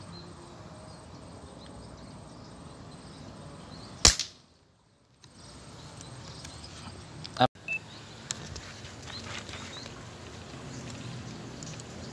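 Air rifle firing 4.5 mm pellets: a sharp crack about four seconds in, then a second, slightly quieter crack about three seconds later, followed by a few small clicks.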